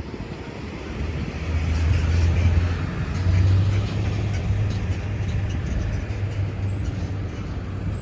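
A motor vehicle's engine running close by, a low hum that swells about a second and a half in and then holds steady.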